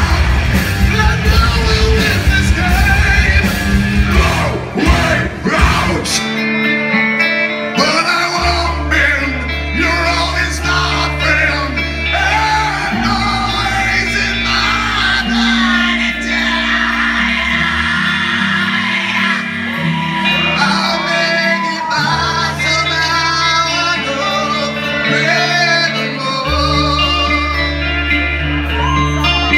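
Live rock band playing: electric guitars, bass and drums with a lead singer. About six seconds in, the dense, heavy playing drops to a sparser section with long held bass notes under the vocals.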